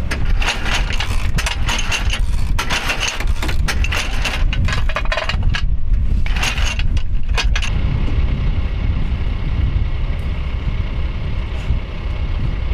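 Steady low engine rumble, with loud rushing noise coming and going in bursts over the first eight seconds, after which only the rumble continues.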